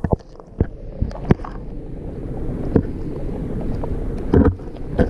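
Muffled rumble of moving water picked up by a GoPro inside its waterproof housing underwater, slowly growing louder, with scattered sharp clicks and knocks from the housing.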